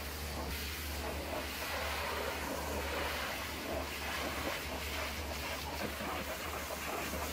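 High-pressure water jet from a pressure washer spraying the windshield and grille of a truck cab: a steady hiss and spatter of water on metal and glass, over a steady low hum.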